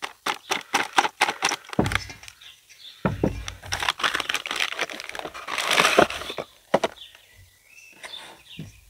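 Plastic bag crinkling and crackling as bread mix is shaken out of it into a stainless steel bowl. The empty bag is then scrunched up, and the crinkling dies away to a few faint clicks near the end.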